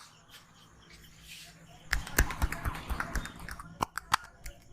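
Head-massage hand percussion: a quick run of slaps and taps on the head, about five a second, begins about two seconds in. It is followed by a few single sharp smacks.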